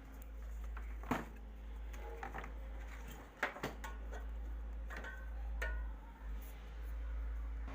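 Scattered clicks and knocks of tools and metal parts being handled while a window AC's fan motor is taken apart, over a steady low hum.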